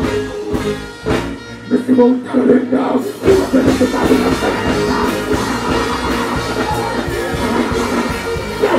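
Dancehall backing track with a steady beat, played loud through a stage sound system, with the deejay's voice on the microphone over it.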